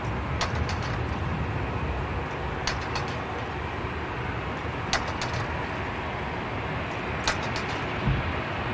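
Steady low rumble of distant jet aircraft across the airfield, with a bird chirping in quick groups of three or four short high notes about every two seconds. A single low thump near the end.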